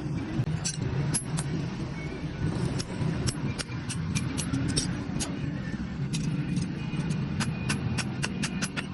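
A steady low rumble under a rapid, irregular run of sharp, light taps or clicks, several a second, that thin out briefly around the middle.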